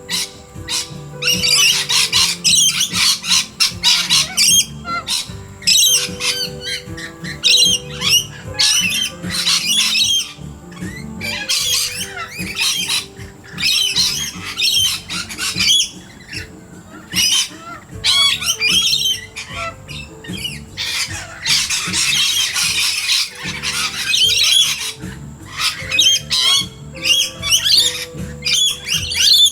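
A flock of parrots screeching in repeated harsh bursts, many birds calling over one another, with steady background music underneath.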